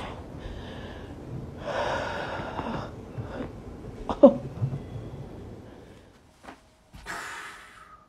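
A person breathing out hard and gasping while being walked on to crack the back. About four seconds in comes one short vocal groan that falls in pitch. A couple of sharp clicks follow near the end.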